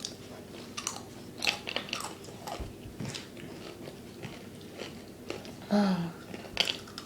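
Crisp fortune cookies being crunched and chewed close to the microphone, in irregular bites. About six seconds in comes a short, louder voiced sound from one of the eaters.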